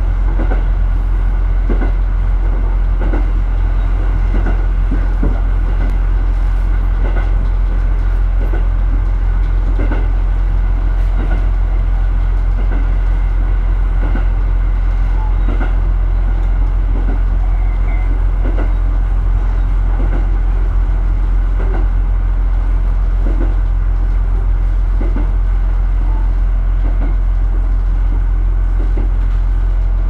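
Diesel railcar running along the track, heard from inside the driver's cab: a steady low rumble with occasional clicks and knocks from the wheels on the rails.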